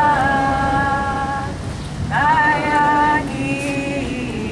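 A woman's voice singing long held notes through a loudspeaker: one sustained note, a short break, then a note that slides up into another held tone about two seconds in, followed by a quieter lower note.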